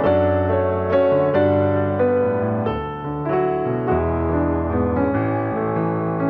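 Background music: piano or keyboard chords with a low bass line.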